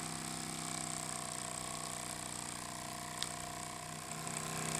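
Miniature brass single-cylinder live steam engine running fast and steady, a constant mechanical chatter from its rapid strokes, with one short click about three seconds in. It is running at an even, constant speed, not racing or vibrating.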